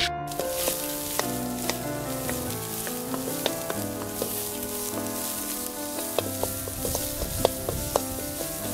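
Food sizzling in a wok as a wooden spatula stirs it, with sharp scrapes and taps of the spatula against the pan every second or so. Background music plays underneath.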